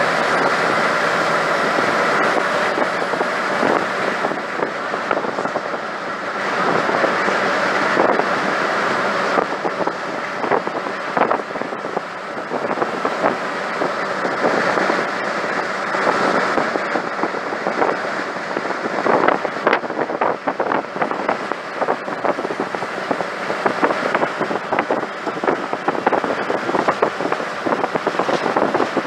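Cabin noise inside a moving Scania OmniCity (CN94UB) single-deck bus: the engine and road noise run steadily under constant loose rattling and knocking from the body and fittings. The rattling comes thicker and harder from a few seconds in, the sound of a worn, knackered old bus that is very loud and rattly.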